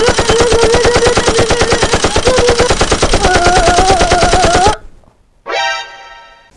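Rapid machine-gun fire, about ten shots a second for nearly five seconds, with a voice held in a wavering yell over it. The fire cuts off suddenly, and a short rising cry follows.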